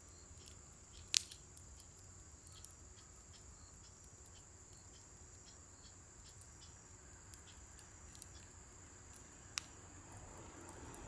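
Scrap-wood fire crackling faintly, with sparse small clicks and two sharper pops, one about a second in and one near the end. Crickets chirp steadily behind it.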